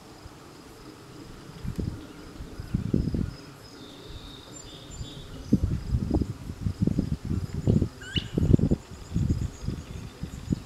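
Wind buffeting the microphone in irregular low gusts, heaviest in the second half, over a steady high chirring of insects; a short rising bird chirp about eight seconds in.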